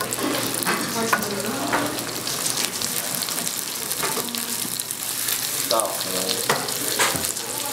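Butter beans frying in oil with Korean red pepper paste in a pan, sizzling steadily as a wooden spatula stirs them.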